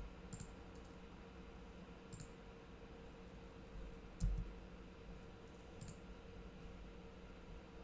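Computer mouse clicking a few times, a sharp click every second and a half or two, over a faint steady electrical hum. About four seconds in there is one duller, louder thump.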